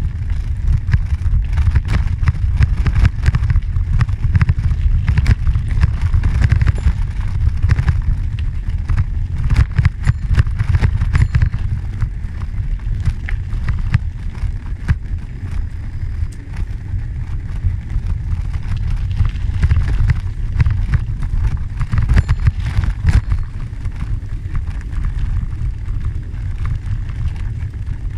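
Heavy wind rumble on the microphone from moving along a gravel trail, with a steady scatter of small clicks, crunches and rattles throughout.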